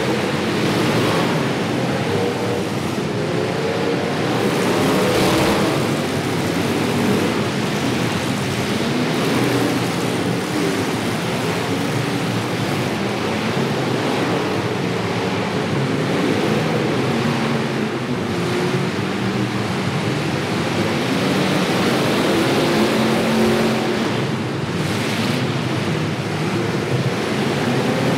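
Engines of several demolition derby cars running and revving together, their pitches rising and falling against one another.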